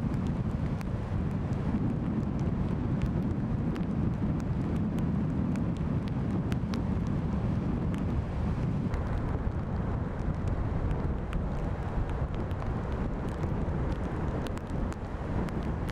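Strong wind buffeting the microphone in a steady low rumble with scattered small crackles, over the wash of heavy storm surf breaking on the beach.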